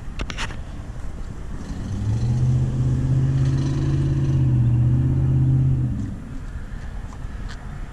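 A motor vehicle's engine going by: a low, steady engine hum swells up about two seconds in, holds for a few seconds, and fades away about six seconds in. A brief sharp click comes just after the start.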